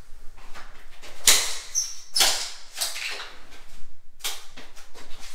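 Plastic Raimondi tile-leveling clips being knocked off a freshly set tile floor: about half a dozen sharp plastic snaps and knocks as the clip tops break away and leave their red bases in the grout joints. A brief high squeak comes about two seconds in.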